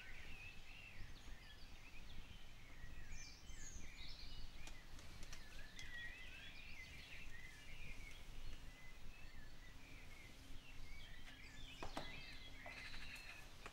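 Birds chirping and singing over a steady low outdoor rumble, with a couple of sharp knocks near the end.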